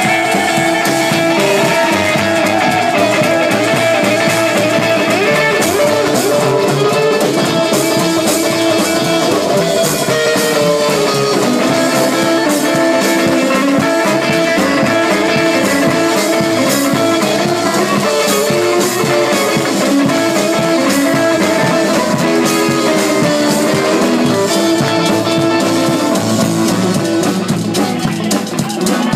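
Live rockabilly band playing an instrumental passage: hollow-body electric guitar over upright double bass and a drum kit.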